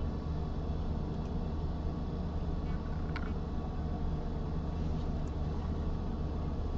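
Steady low background hum with a light hiss, such as room or machine noise picked up by the microphone, with a single faint click about three seconds in.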